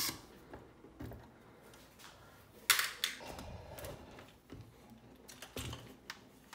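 Crate B80XL bass amp's sheet-metal chassis and housing being handled and lifted on a workbench: scattered light knocks and rattles, with a sharp metal clank about two and a half seconds in and another just after.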